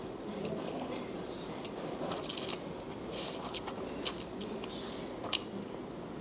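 A person eating fried instant noodles off a fork: soft chewing with a few scattered wet mouth clicks and smacks, picked up close by a clip-on microphone.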